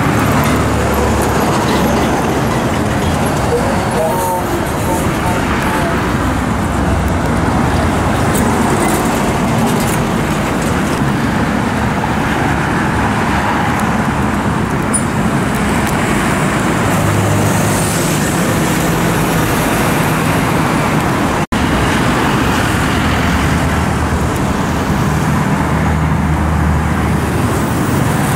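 Busy multi-lane road traffic: diesel trucks, a city bus, cars and small motorcycles passing in a continuous mix of engine drone and tyre noise, with a low engine hum swelling and fading as heavy vehicles go by. The sound drops out for an instant about two-thirds of the way through.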